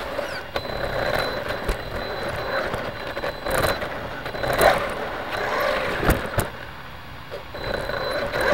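A steady high-pitched electronic tone that stops about four and a half seconds in and returns near the end, over vehicle and street noise with scattered sharp clicks and knocks.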